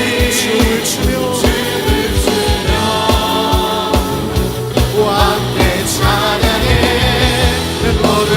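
Contemporary Christian worship band music with a steady drum beat and singing.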